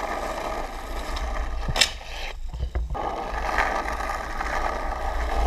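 Skateboard wheels rolling on rough asphalt, a steady rolling noise. A sharp clack a little under two seconds in, then the rolling cuts out for about half a second with a knock before it resumes.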